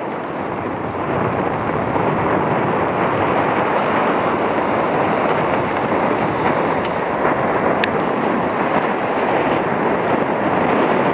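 Strong gale-force wind blasting across the microphone in a steady rushing noise that builds over the first two seconds, mixed with the sound of heavy breaking surf.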